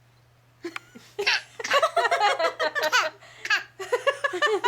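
Laughter in quick, repeated high-pitched bursts, starting after a short silence about a second in.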